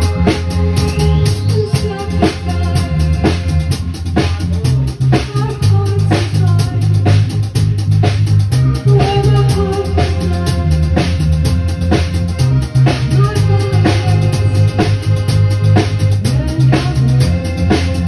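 Live band playing a synth-pop song: a Korg synthesizer, an electric bass guitar and drums with a steady beat, with gliding synth lines over a moving bass line.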